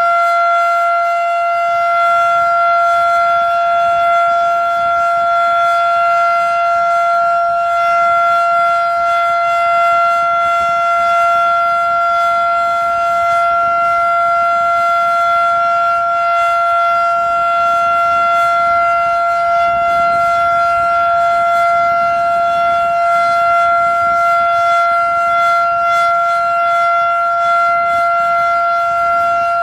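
Federal Sign and Signal Model 7 electromechanical warning siren sounding the full alert, a loud steady tone that holds one pitch without rising or falling.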